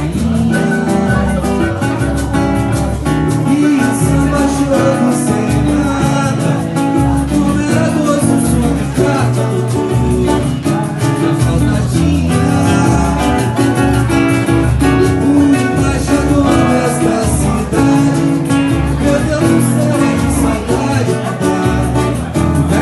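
Live samba band playing: plucked acoustic guitar and percussion over a steady beat, with singing.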